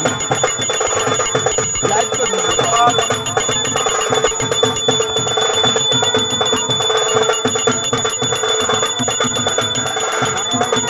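A small brass hand bell (puja ghanta) rung rapidly and without pause during a Hindu puja, a steady high jangling ring.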